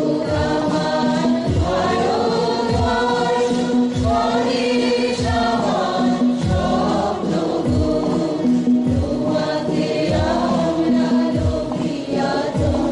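A women's group singing together through microphones, over a steady held note and a regular low beat whose strokes drop in pitch.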